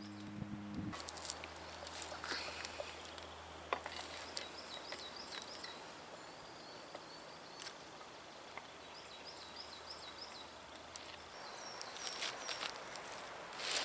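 Woodland ambience: a small bird calling in two runs of quick repeated chirps, over scattered light clicks and taps and a faint low hum that stops about eleven seconds in.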